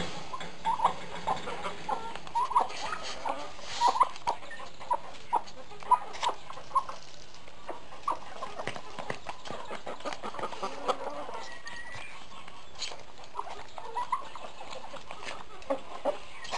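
A tom turkey and chickens clucking in short, scattered calls. Around the middle, grain feed pours onto concrete, followed by a patter of beaks pecking.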